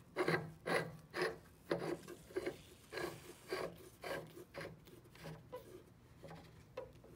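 The knurled metal lid of a critical point dryer's chamber being screwed shut by hand: a series of short metal-on-metal turning strokes, about two a second, growing fainter toward the end.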